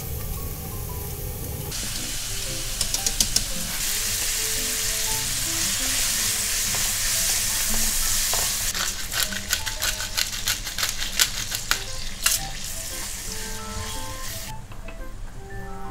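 Diced bacon sizzling in a nonstick wok while a silicone spatula stirs it, with clicks and scrapes of the spatula against the pan. The sizzle drops away near the end. It is preceded by a couple of seconds of low rumble from a pot of water boiling.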